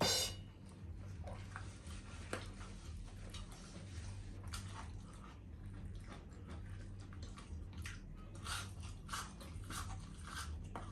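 Close-up chewing of crispy fried food: irregular small crunches and wet mouth sounds, coming more often in the second half, over a steady low electrical hum. A sharp click sounds right at the start.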